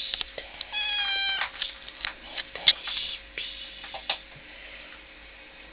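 Turkish Van cat meowing: one held meow at a steady pitch about a second in, amid a run of sharp clicks and taps that die away after about four seconds.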